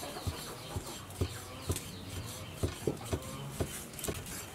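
Cleaver slicing raw pork on a thick wooden chopping block, each stroke ending in a dull knock on the wood, about two a second with a few irregular gaps. Faint bird chirps repeat in the background.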